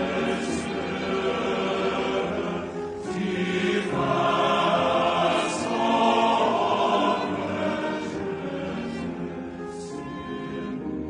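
Men's chorus singing a slow choral piece as background music, swelling louder in the middle and easing off near the end.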